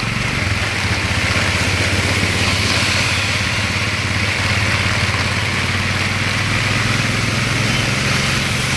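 Heavy rain pouring onto a wet road, a steady hiss, with the low steady hum of a nearby motor vehicle engine under it.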